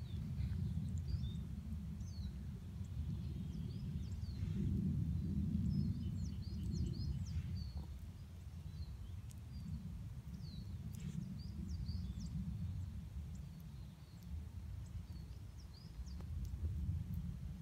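Outdoor ambience: a low, uneven rumble of wind on the microphone, with many short, high chirps of small birds over it, busiest about five to seven seconds in.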